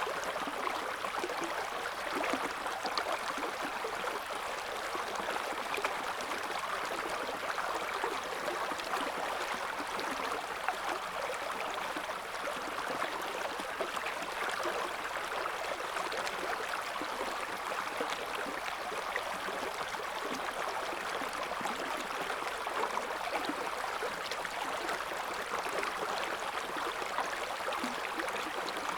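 River water flowing steadily over stones, a constant rushing with small splashes and gurgles.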